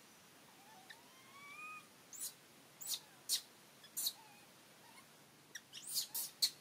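Infant long-tailed macaque giving a series of short, high squeaks, a few at first and then coming quickly near the end as it pulls away from its mother.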